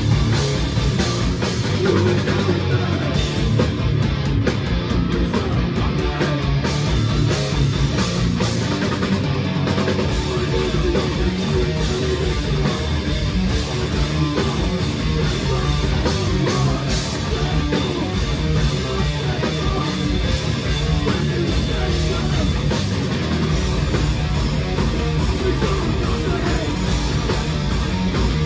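Live heavy rock band playing loud: electric guitars, bass guitar and drum kit, with a vocalist shouting into the microphone.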